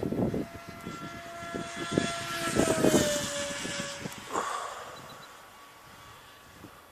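Electric motor and 5x5 propeller of a Wing Wing Z84 RC flying wing (NTM 2836 2200 kV brushless motor on 4S) whining as the plane flies fast. It is loudest as it passes about halfway through, its pitch drops a little, and it fades away near the end. Wind buffets the microphone in the first few seconds.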